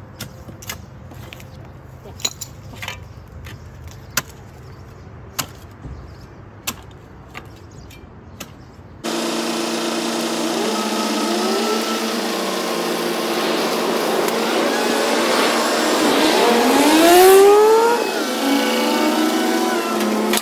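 Shovels striking into dry soil and palm roots, a sharp strike every second or so. Then a truck-mounted crane's engine and hydraulics running, rising in pitch several times as it revs under load.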